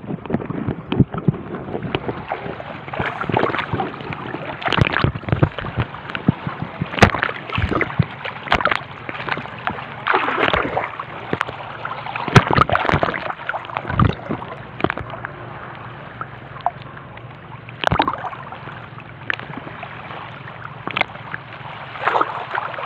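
Shallow seawater sloshing and splashing right against a phone held at the waterline, with irregular sharp knocks and swells as the small waves wash over it.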